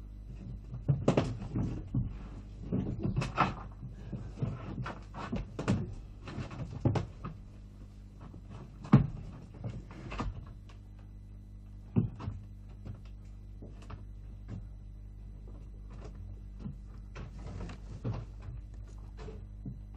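Irregular knocks and scuffing steps, busiest in the first half, with one loud knock about nine seconds in and another about twelve seconds in, over a steady low electrical hum.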